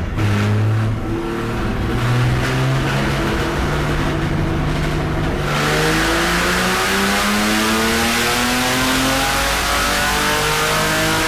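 Chevrolet Opala engine making a full-throttle pull in fourth gear, its revs climbing slowly and steadily, with the sound turning much harsher about halfway through as it comes onto full load. The pull is a check of the air-fuel mixture, which leans out toward the top of the rev range.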